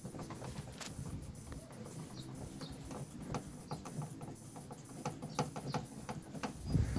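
Scattered, irregular light clicks and taps of hand work while the Skoda Octavia's third brake light is being refitted.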